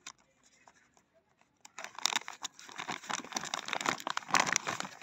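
Clear plastic packaging bag with a cardboard header being pulled and torn open. It is faint at first, then gives dense crinkling and tearing from just under two seconds in.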